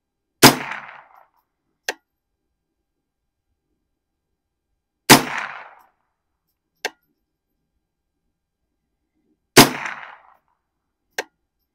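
AR-15 rifle firing three single aimed shots, evenly spaced about four and a half seconds apart, each with a short ringing tail. About a second and a half after each shot comes a much fainter short click.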